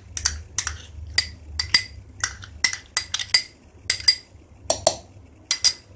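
Metal spoon scraping and knocking against a glass bowl and a steel bowl while thick curd is spooned out: a run of sharp, ringing clinks, two or three a second.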